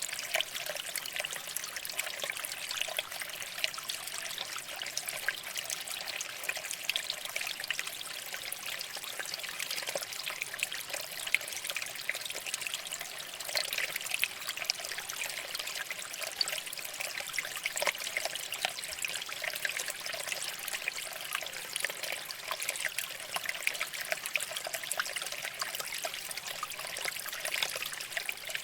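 Shallow stream water flowing and trickling over rocks: a steady, even splashing and babbling with no change or break.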